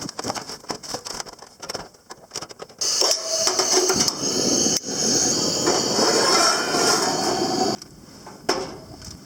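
Cooking gear being handled, with a run of clicks and knocks. Then comes about five seconds of loud hissing rustle that cuts off abruptly, followed by one more knock.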